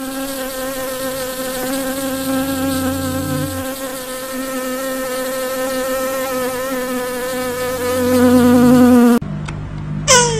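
Paper wasps buzzing at their nest, a steady droning hum with a slightly wavering pitch that grows louder toward the end and cuts off suddenly about nine seconds in. A brief falling sweep follows near the end.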